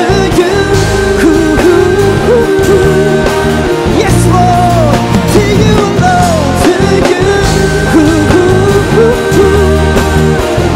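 Live worship band playing a rock-style song: a sung melody over acoustic guitar, bass and drums.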